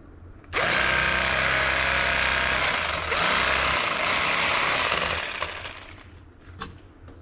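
Electric fillet knife running as its blades cut a crappie fillet. It starts about half a second in, runs steadily for several seconds, then dies away. A short click comes near the end.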